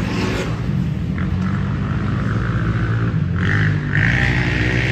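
Side-by-side UTV engine running steadily under way, with a higher whine that comes in about a second in and grows louder past the three-second mark.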